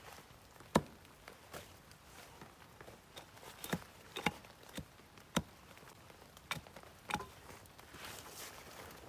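Scattered sharp knocks and clicks, about a dozen spread unevenly, the loudest about a second in. Near the end a soft, steady crunching sets in.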